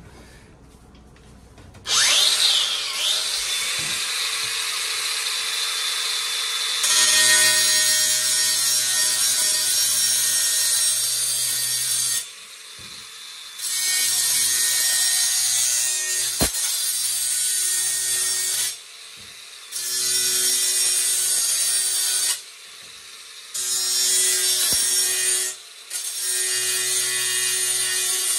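A DeWalt angle grinder with a metal-cutting disc spins up with a rising whine about two seconds in. It then cuts through a metal boiler flue pipe, getting louder once the disc bites. The cutting comes in several stretches with short pauses between them.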